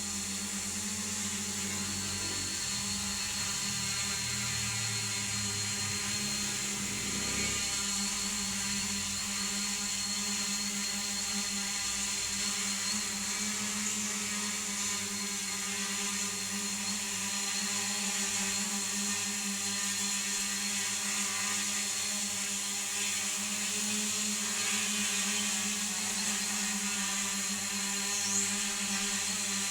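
Homemade multirotor drone's electric motors and propellers whirring at a steady pitch while it holds its altitude in a hover.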